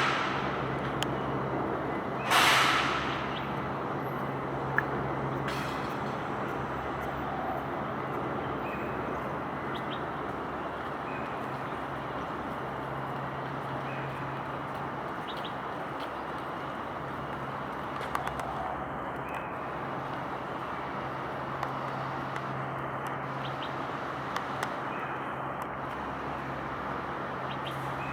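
Steady traffic noise over a constant low engine drone, with a loud air-brake hiss about two seconds in that fades quickly.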